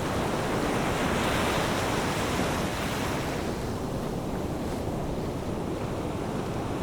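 Sea waves washing on a shore, with wind buffeting the microphone. The surf is fullest in the first few seconds and eases off near the end.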